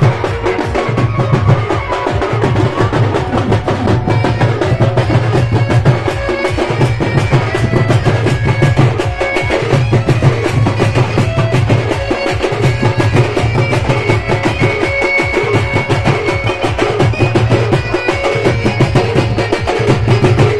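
Wedding drum band playing fast dance music: rapid, dense drumbeats and clacking percussion over a deep pulsing drum, with a melody line above.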